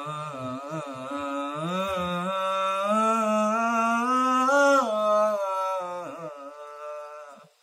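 A man singing a sholawat line unaccompanied, holding long ornamented notes whose pitch slides and wavers, fading out near the end.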